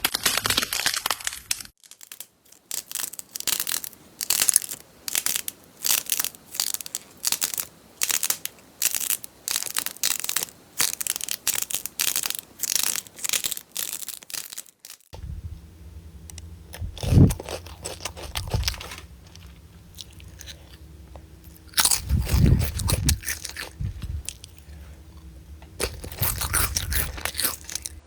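Crunchy slime being squeezed and pressed by hand: a quick run of short, crisp crunches, one or two a second. About halfway through, after a cut, a few slower, deeper presses over a low steady hum.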